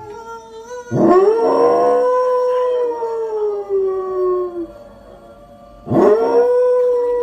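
A dog howling: two long howls, the first about a second in and the second near the end, each swooping up at the start and sliding down in pitch as it fades.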